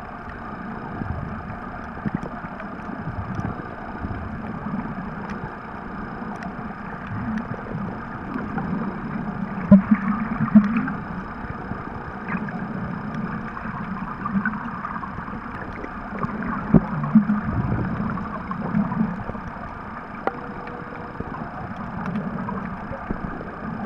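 Muffled underwater sound picked up by a camera held below the surface: an irregular low rumble that swells louder several times, with scattered faint clicks.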